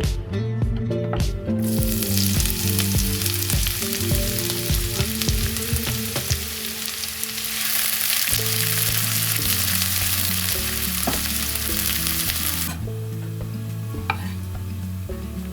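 Food frying in a hot pan: loud sizzling that starts about a second and a half in and drops away near the end, followed by a few light utensil taps. Background music plays underneath.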